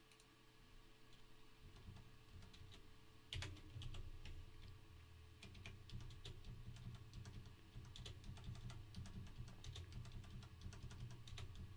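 Computer keyboard typing: quiet, irregular keystroke clicks as text is entered into a code editor, with one louder key strike about three and a half seconds in.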